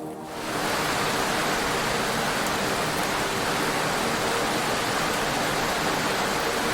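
Heavy rain as a steady, dense rush, starting abruptly just after the beginning and cutting off abruptly near the end.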